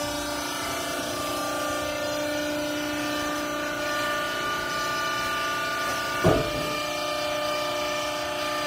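Hydraulic rag baler running: a steady machine hum with a whine of several even tones, and one sharp clunk about six seconds in.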